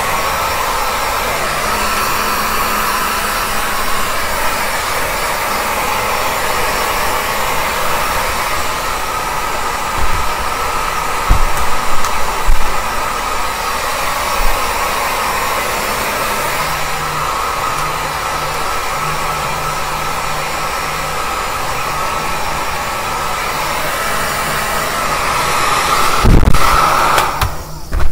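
Handheld hair dryer blowing steadily, a constant rush of air with a whine in it and a few handling bumps, then switched off just before the end.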